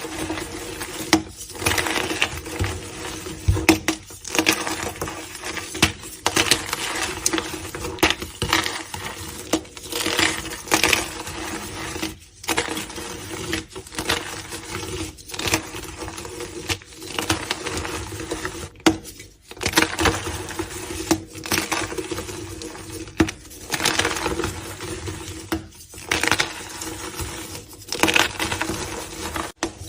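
Crunchy blocks of gym chalk being crushed and crumbled, a dense crackling crunch that swells and eases every second or two.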